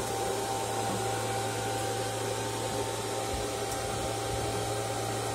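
Steady hiss with a constant low hum from the amateur radio station's equipment, such as cooling fans and receiver noise, with no voice on the air.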